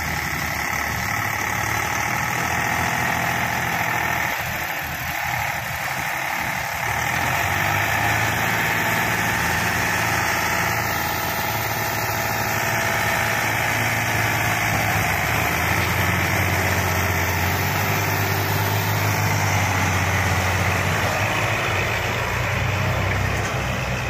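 Diesel tractor engines running steadily, the Eicher 485's three-cylinder diesel and a front-loader tractor working together to free a trolley stuck in sand; the engine sound gets a little louder about seven seconds in.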